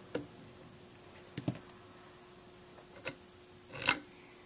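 Screwdriver backing out the steel tang screw of a Marlin 1895 lever-action receiver: a few light clicks spaced about a second apart, then a short louder scrape near the end as the loosened screw is taken out.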